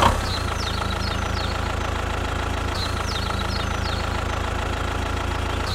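Tractor engine idling steadily with an even, low hum, with a few faint, short high chirps over it.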